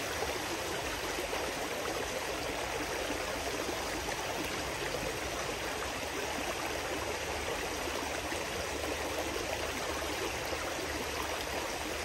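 Shallow creek water running steadily over rocks and through a gold sluice box, an even rushing sound with no breaks.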